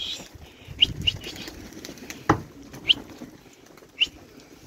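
Domestic pigeons' wings flapping as the flock is chased up, with several short high chirps and one sharp knock a little past halfway.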